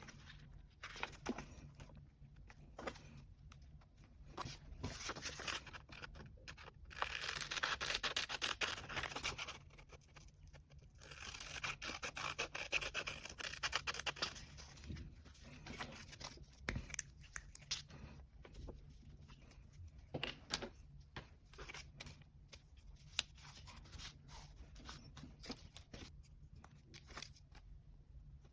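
Hand crafting sounds from a paper journal collage: scissors snipping, with peeling and tearing of sticker film and paper. Two longer stretches of dense rustling and tearing fall in the middle, with small taps and clicks in between.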